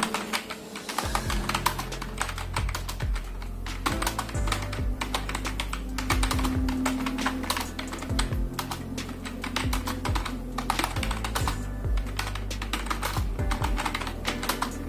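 Fast, continuous typing on a computer keyboard during a typing-speed test: a dense run of key clicks with no pauses, over background music with a steady bass line.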